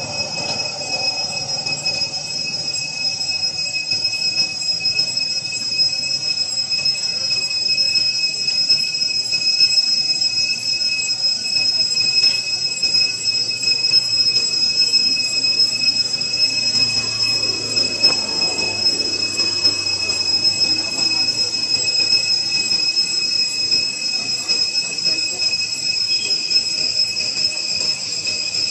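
Insects droning steadily at one high, unwavering pitch, with faint rustling beneath.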